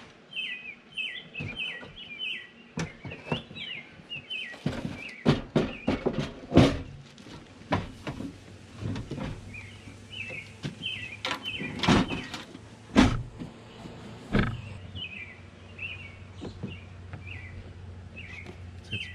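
Small birds chirping over and over, with a string of knocks, bumps and scrapes as a metal Coleman camp grill is pulled out of a wooden storage box under a truck-bed sleeping platform and the hinged platform is lowered. The loudest bangs come about a third of the way in and again about two-thirds in.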